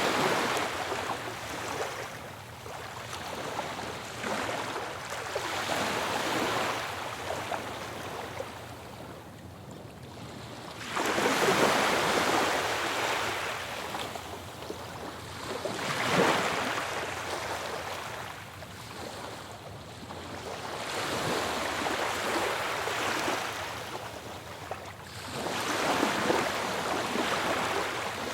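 Ocean waves crashing and washing back, the rush of water swelling and fading every few seconds, with one sudden louder crash about eleven seconds in.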